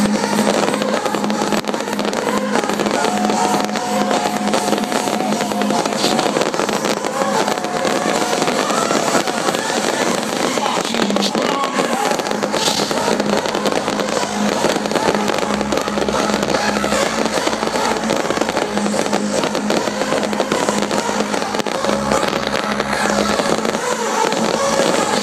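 Aerial fireworks crackling and popping without a break over loud hardstyle music.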